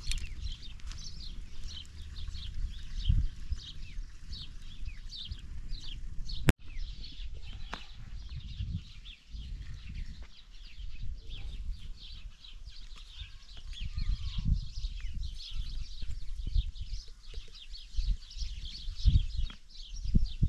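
Many small birds chirping continuously in quick, short calls over a low, uneven rumble. A sudden cut about six seconds in breaks the sound for an instant.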